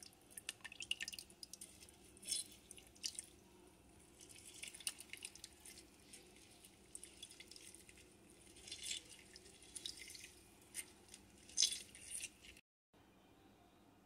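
A lemon half squeezed by hand, its juice squirting and dripping into a glass blender jar in short, irregular wet bursts.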